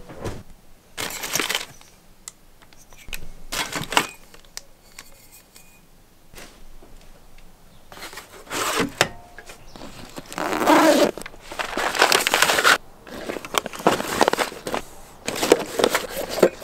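Coffee gear being handled and packed into a bike frame bag: irregular clinks, knocks and rustles of bottles, cups and bag fabric, with a longer scraping rustle about ten to thirteen seconds in.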